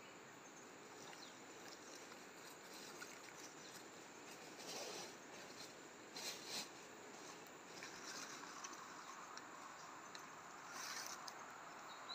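Quiet outdoor ambience with a faint steady hiss and a few soft rustles around the middle and again near the end, as of leaf litter and handling.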